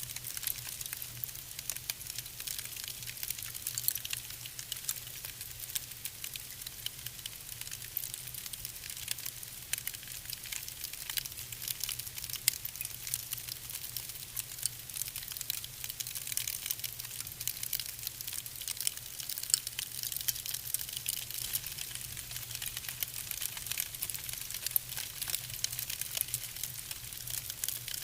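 Wood fire burning in a fireplace, crackling steadily with many small sharp pops, over a low steady hum.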